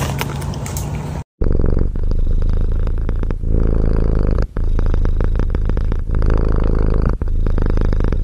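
Domestic tabby cat purring loudly close to the microphone. The purr runs in long pulsing stretches with a brief pause at each breath, and starts about a second in.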